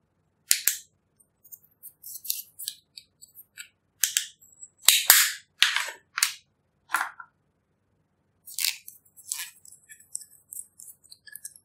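Irregular sharp clicks and crackly scrapes from powder eyeshadow being scraped out of a plastic compact with a plastic tool, and from small plastic makeup containers being handled.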